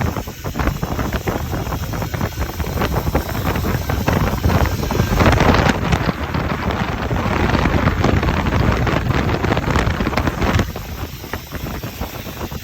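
Strong gusting wind buffeting the microphone, over a steady rushing noise that swells in the middle and eases off suddenly about eleven seconds in.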